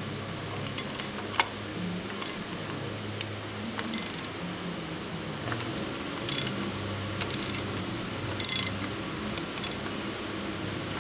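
Metal hand-tool work on the WWII StuG III transmission casing: scattered sharp metallic clicks and several short ratcheting bursts, the loudest about eight and a half seconds in, over a steady low hum.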